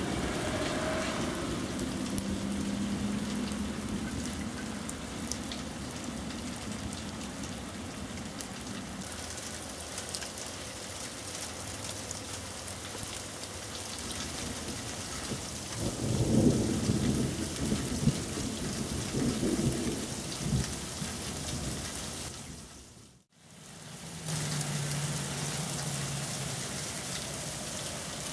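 Steady heavy rain pattering down, with rolling thunder that swells loudest about two-thirds of the way through. The sound drops out briefly a little later, then the rain resumes.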